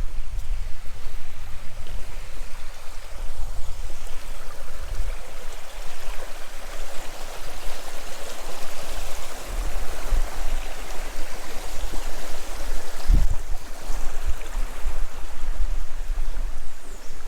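River water running over the stream bed, a steady rushing that swells in the middle, over a low rumble, with a single thump about 13 seconds in.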